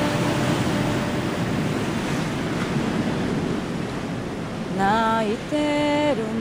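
Ocean surf washing in, a steady rushing noise. About five seconds in, a woman's voice starts singing long, wavering notes over it.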